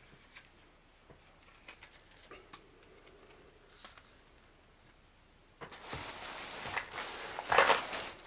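Light clicks and taps of plastic lure packages being handled on a table, then, from about five and a half seconds in, a plastic shopping bag rustling and crinkling as a hand rummages inside it.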